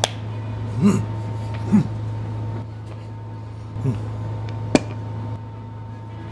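A man's short, rising-and-falling 'mm' hums of appreciation while tasting food, three of them, then a single sharp click about three-quarters of the way through. A steady low hum runs underneath.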